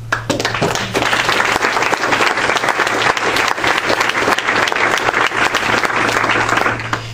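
Audience applauding: dense, sustained clapping that starts right away and stops near the end.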